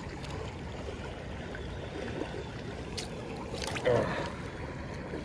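Shallow creek water running steadily over rocks, with a couple of short splashes near the middle as a trout is handled in a landing net at the water's surface. A brief grunt-like vocal sound comes about four seconds in.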